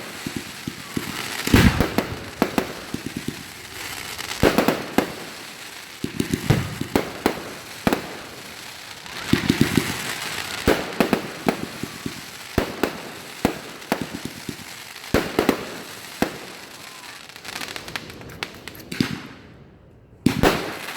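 Fireworks going off: a run of sharp bangs at irregular intervals, some in quick clusters, with crackling between them.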